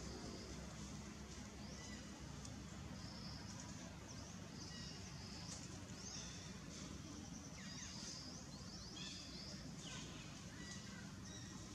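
Outdoor ambience of birds chirping: many short, quick, high-pitched calls scattered throughout over a steady low rumble.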